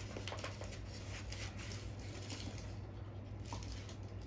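Faint scattered rustles and light clicks of trading-card packs and their packing being handled, over a steady low hum.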